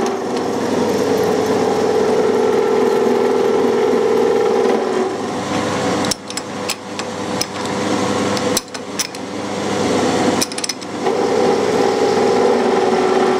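Milling machine running with a milling cutter in its drill chuck, plunging a counterbore into aluminium: a steady motor hum under the rasp of the cut. It dips briefly with clicks a few times in the middle.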